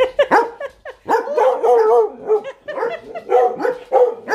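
Excited dogs barking and yipping in a rapid, unbroken run of short high calls, worked up at the prospect of going in the caravan.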